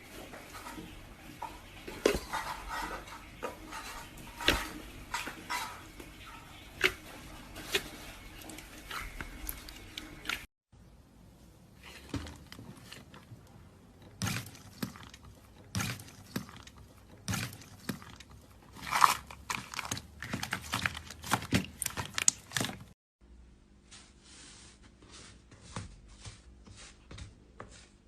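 Slime being squeezed and poked by hand, giving irregular sticky clicks and pops, in three separate clips that cut abruptly twice; the last clip is quieter.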